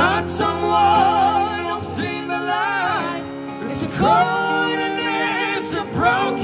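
A man and a woman singing a duet into microphones over an amplified live band, the voices sliding between notes with vibrato.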